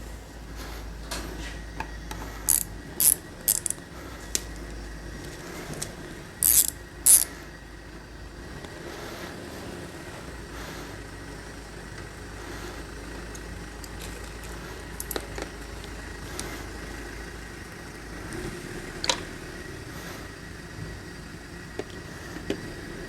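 Hand tools working on the metal transmission valve body: a string of short, sharp clicking bursts in the first eight seconds, then a single sharper click later, over a steady low hum.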